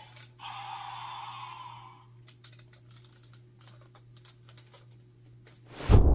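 A Kamen Rider toy blaster plays a short electronic sound effect for about a second and a half. It is followed by a run of irregular plastic clicks as the toy is worked by hand. Near the end comes a loud, heavy thump.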